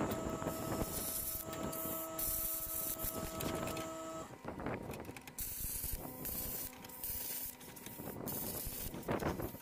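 Handheld plasma cutter cutting the sheet-steel inner fender panel: a rushing hiss of air with a steady buzzing tone under it, coming in short repeated bursts. The buzzing tone shifts lower about four seconds in.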